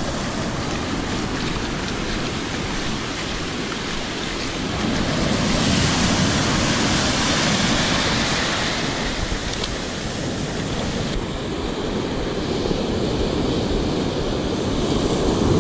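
Ocean surf washing up the beach, foam rushing over the sand in a steady hiss, with one wash swelling louder for a few seconds around the middle.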